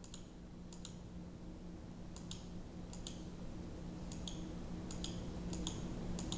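A computer mouse button clicking at uneven intervals, about nine quick press-and-release double clicks, faint and sharp, over a low steady hum.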